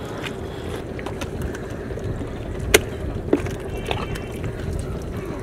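Steady hum of a distant motor, with two sharp clicks a little past halfway.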